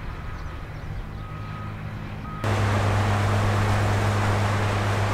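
A truck driving through floodwater with a low rumble while a high beep sounds about once a second. About two and a half seconds in, the sound cuts abruptly to a loud, steady hiss of a pickup truck's tyres throwing up floodwater, over a steady low hum.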